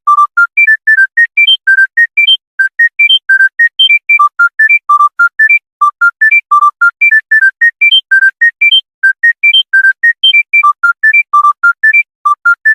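Panasonic mobile phone ringtone: a fast melody of short synthesized beep notes, about five a second, running up and down in quick mostly rising runs.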